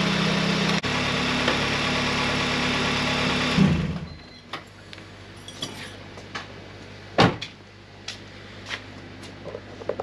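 Honda G23 VTEC four-cylinder, swapped into a Civic, idling steadily, then shut off about three and a half seconds in. A few light clicks and one sharper knock follow.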